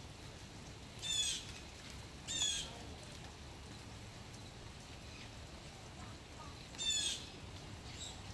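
Blue jay giving three short, harsh calls: one about a second in, another a second later, then a third near the end.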